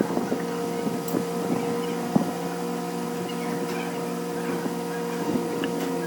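A machine running at a steady, unchanging pitch, with scattered light clicks and taps over it.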